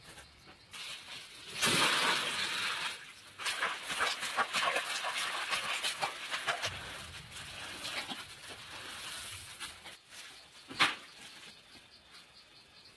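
Scratching and scraping in dry soil and grass, with scattered clicks and a sharp knock about eleven seconds in.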